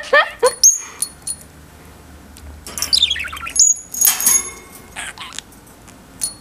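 Budgie chirping: a quick run of rising chirps at the start and another run of falling chirps about three seconds in, with brief high tinkling sounds around one second and four seconds in.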